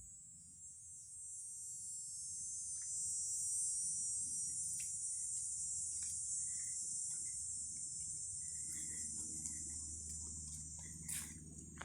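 Steady, high-pitched chorus of insects, swelling over the first few seconds and then slowly fading. There are a few faint clicks, and a brief louder rustle near the end.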